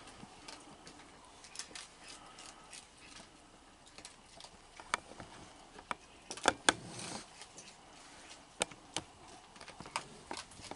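Raccoons eating on a wooden deck: scattered small clicks and taps of feeding around a plastic bowl, with a few sharper taps about five to seven seconds in and another near nine seconds, over a faint steady hiss.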